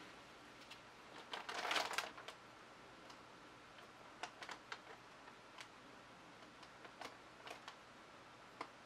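Faint handling clicks and crackles as gloved hands grip and tilt a stretched canvas of wet pour paint, with a denser crackly burst about a second and a half in, then scattered single clicks.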